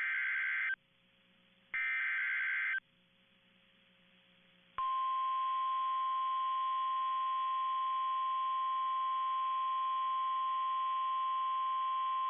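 NOAA Weather Radio Emergency Alert System broadcast. It opens with two short bursts of screeching SAME digital header data, the first already under way. About five seconds in, the steady single-pitch 1050 Hz Warning Alarm Tone starts and holds unbroken. It is the alert that heralds a severe thunderstorm warning.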